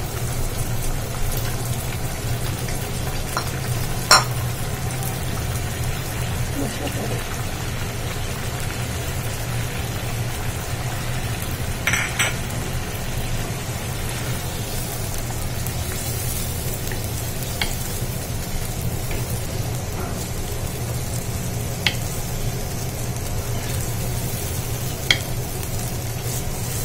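Egg korma gravy sizzling and bubbling as it simmers in a pan, over a steady low hum. A wooden spatula stirs it, with a few sharp knocks against the pan.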